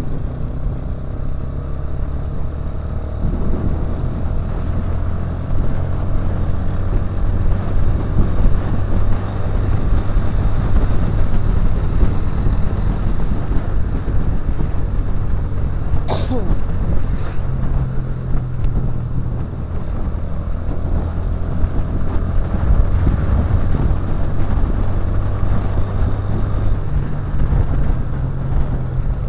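Motorcycle engine running steadily while riding in traffic, heard from the bike itself, its low note shifting now and then as the speed changes. The engine noise is mixed with road and wind noise. One brief high sliding tone about halfway through.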